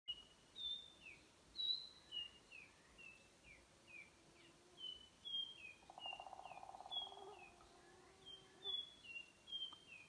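Nightingale wren singing: a series of high, pure whistled notes, two or three a second, each at a slightly different pitch, some held level and some sliding downward. A lower buzzing trill sounds briefly just past the middle.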